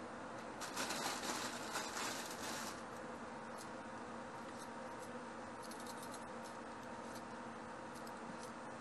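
Kitchen handling sounds over a steady faint hum: a crackly rustle for about two seconds starting half a second in, then a few light clicks.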